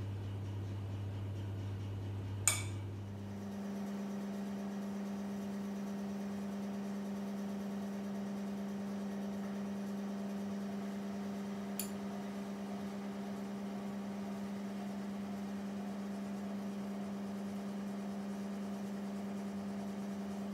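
Steady low electrical hum that steps up in pitch right after a sharp click about two and a half seconds in, with a faint tick near the middle.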